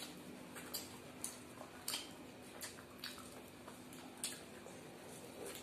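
Eating sounds: faint wet clicks and smacks of mouths chewing luchi and aloo dum potato curry, and fingers tearing the fried bread, coming irregularly about once or twice a second over a faint low hum.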